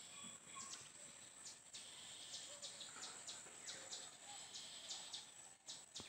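Faint field ambience: a steady high-pitched insect drone, with short chirps scattered through it.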